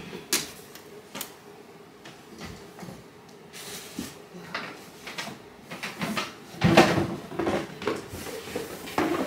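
Someone rummaging in a closet: scattered knocks and clicks of things being moved and set down, a few single ones at first, then a busier run of knocks in the last few seconds.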